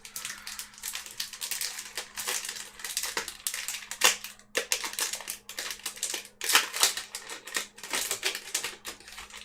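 Foil booster-pack wrapper crinkling and tearing as a Yu-Gi-Oh pack is opened, an irregular crackling throughout.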